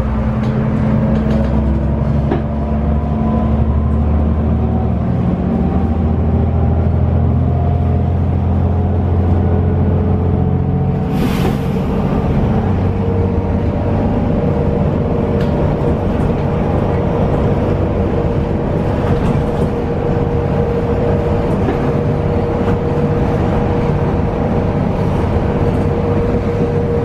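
Heuliez GX 317 city bus's Iveco Cursor diesel engine and ZF automatic gearbox heard from inside the cabin while under way: a steady engine rumble with a whine that rises as the bus gathers speed. About eleven seconds in there is a short rushing noise and the engine note changes, after which the whine holds steady at cruising speed.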